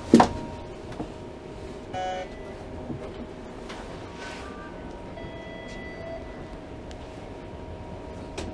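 Riding a Toronto streetcar: steady electric tones from the car and its running noise, a sharp knock just after the start and a short electronic chime about two seconds in.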